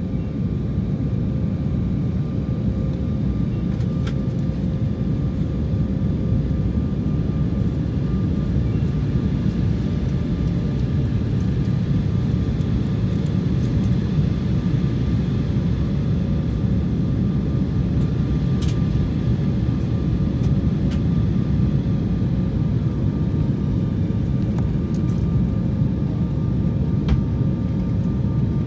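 Steady jet airliner cabin noise, engine and airflow drone heard from a window seat during the descent. A faint steady whine runs over the low noise, with a few light ticks.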